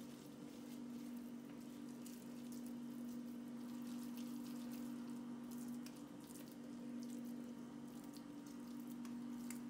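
Faint sizzling and light crackling of meatballs searing in a little hot oil in a pan, over a steady low hum.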